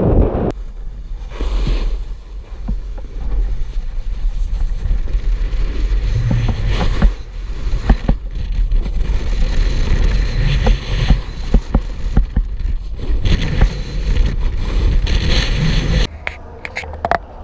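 Snowboard scraping and carving over packed snow with wind buffeting the action camera's microphone: a steady low rumble with scattered sharp clicks. The sound changes abruptly about a second before the end.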